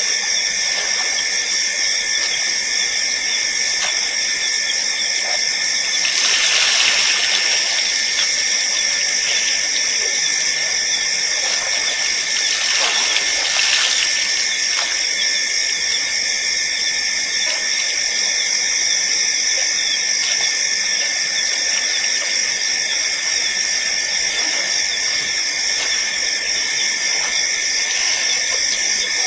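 A steady chorus of night insects, a dense high trilling, with two brief swells of rushing noise about six and thirteen seconds in.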